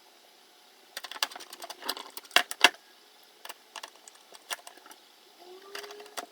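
Screwdriver driving the hard drive's mounting screws into the metal NVR recorder case: irregular light metallic clicks and ticks, with two louder clicks about two and a half seconds in.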